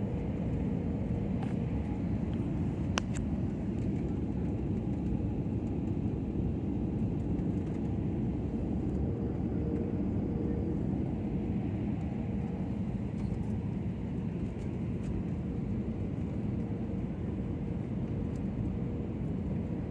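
Steady roar inside a jet airliner cabin on approach to landing: engine and airflow noise through the fuselage, with a faint steady hum. A single brief click about three seconds in.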